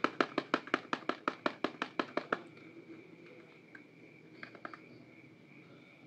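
Fingernails tapping rapidly and evenly on a cardboard soap box, about six taps a second, stopping about two and a half seconds in. Then a few faint ticks and rustles as the box is handled.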